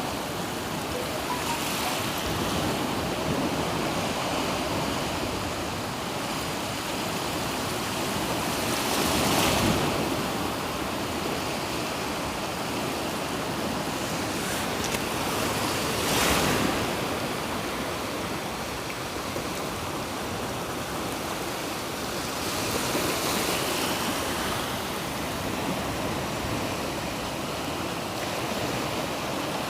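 Black Sea surf washing onto the shore, a steady rush with a louder wave breaking every seven seconds or so.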